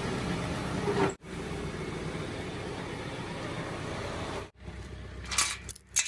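Small farm tractor engine running steadily. It cuts off abruptly twice, and after the second break it comes back quieter, with a couple of short bursts of noise near the end.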